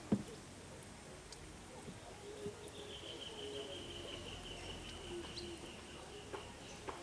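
Quiet pondside wildlife calls: a long, steady high-pitched call starts about three seconds in and runs on, slightly falling, over faint lower calls. A single knock sounds at the very start.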